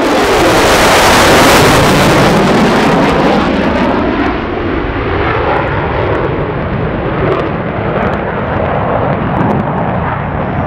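Jet engines of an EA-18G Growler and F-35C Lightning II passing in formation. A loud roar peaks about one to two seconds in, then carries on a little quieter as the jets pull away.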